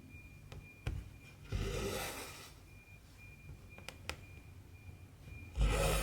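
Cotton embroidery thread drawn through cross-stitch fabric in two long swishes, one about a second and a half in and one near the end. Between them come a few sharp ticks of the needle piercing the cloth.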